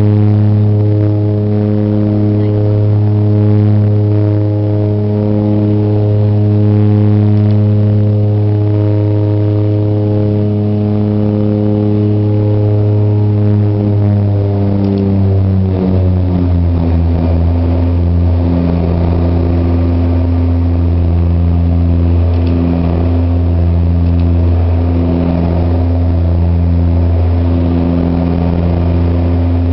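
Twin Otter's turboprop engines and propellers droning in the cabin beside the wing. About halfway through, the pitch slides down as the propeller speed is brought back after takeoff, and a slow regular throb sets in.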